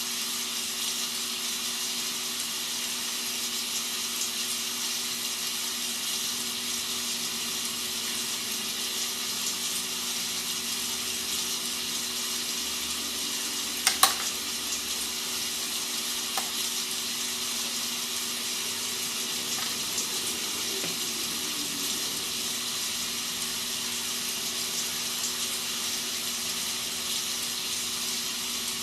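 Rain sound effect used as white noise: an even, steady hiss of falling rain, with a low steady hum underneath. A sharp click cuts through about 14 seconds in, and a fainter one about two seconds later.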